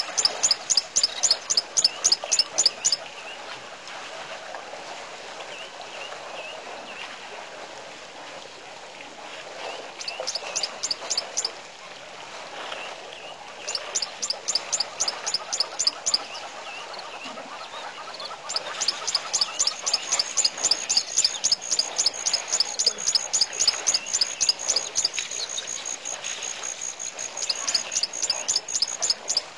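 A rapid, high chirping call of about five notes a second, repeated in bouts of a few seconds with short pauses between, the longest bout in the second half. Underneath is a steady, softer chorus of other bird and insect calls.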